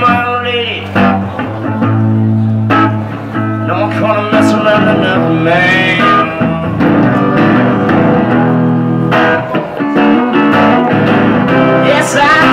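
A band playing guitar-led music, with held low notes underneath and plucked guitar lines on top.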